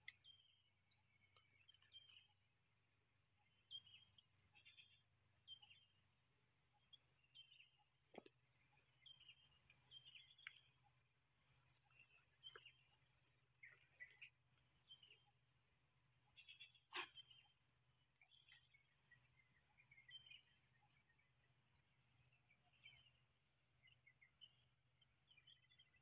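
Faint, steady high-pitched drone of insects, with scattered short chirps and a single sharp click about two-thirds of the way through.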